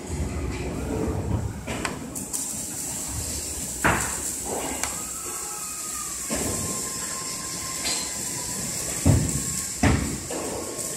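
Plastic cable drag chain being handled and fitted by hand: a few sharp clicks and knocks of the links, one about four seconds in and two close together near the end, over a steady workshop hum with a high whine. A faint steady tone runs for a few seconds in the middle.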